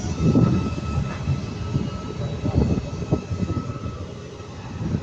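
Class 88 bi-mode locomotive moving off: a deep, uneven rumble that swells and fades, with faint steady whining tones above it. The diesel engine is taken to be running rather than electric power alone.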